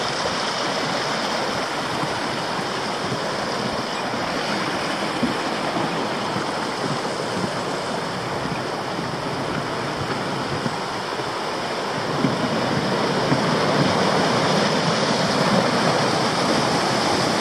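The Arve River, a small mountain river, rushing steadily over rocks. The sound grows a little louder about two-thirds of the way through.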